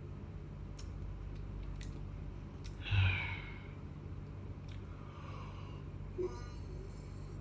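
A person's soft, breathy sleepy sigh about three seconds in, made as a sleepy noise, over a low steady hum with a few faint clicks.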